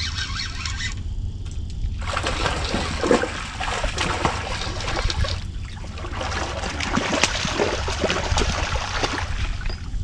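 A hooked catfish thrashing at the surface close to the bank as it is reeled in, a run of irregular splashes that starts about two seconds in and keeps going.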